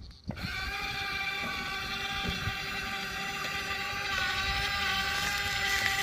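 Toy excavator's motor whining at a steady pitch as it is driven, starting just after the beginning and getting a little louder and lower about four seconds in.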